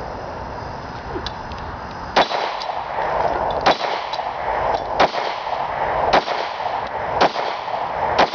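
Gunshots fired one at a time, about one a second, six sharp cracks in all, over a steady background noise.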